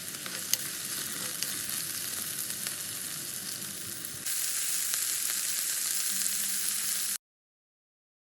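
Food sizzling and frying in hot oil in a pan: a steady hiss with scattered crackles. It jumps louder a little past halfway, then cuts off abruptly about a second before the end.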